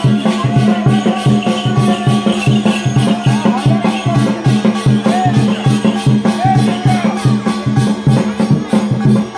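Folk percussion music: drums and rattles playing a fast, steady beat of about four strokes a second, with a pitched melody line gliding above. It cuts off abruptly at the end.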